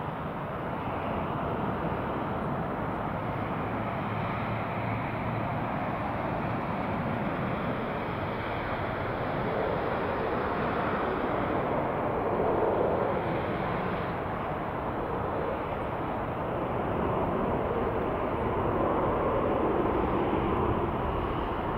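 Jet noise from a Boeing 787 Dreamliner on landing approach: a steady rushing roar from its turbofan engines as it closes in. It swells slightly as it nears, with a slow sweeping shift in its tone.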